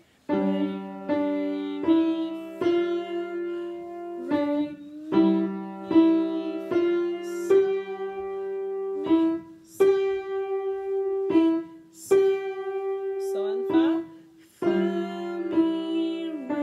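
Piano played slowly with both hands: a simple beginner melody over lower notes, about one note a second, with a few short breaks between phrases.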